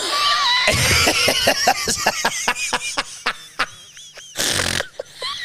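A man and a woman laughing hard: rapid breathy pulses of laughter with high-pitched squeals, and a loud gasping burst about four and a half seconds in.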